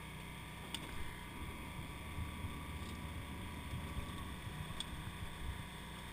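Electrofishing boat's motor running with a steady low drone while a dip net works the water alongside, making uneven low sloshing bumps. Two brief sharp clicks come about a second in and near the end.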